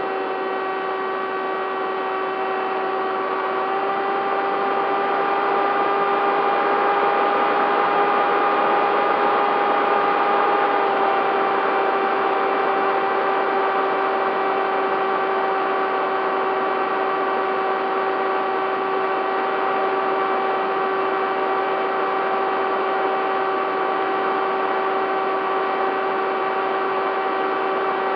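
Bixler 3 model plane's electric motor and propeller whining steadily in flight. The pitch rises slightly about four seconds in and eases back down about eleven seconds in, over a constant rush of air.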